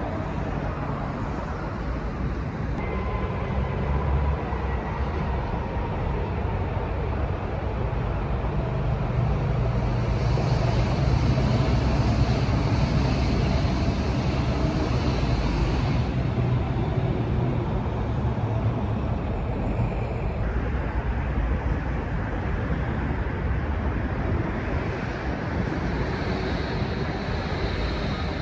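Electric passenger trains rolling along the tracks of a rail yard: a steady rumble of wheels on rails with a wash of city traffic noise. It grows louder from about ten seconds in, and the sound shifts abruptly several times.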